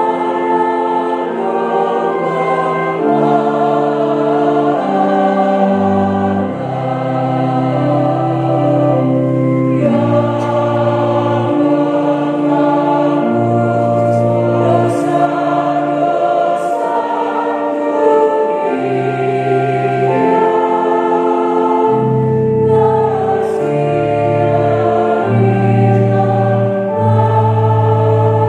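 Church choir singing a hymn in several parts, accompanied by an electronic organ: held chords that change in steps over sustained low bass notes.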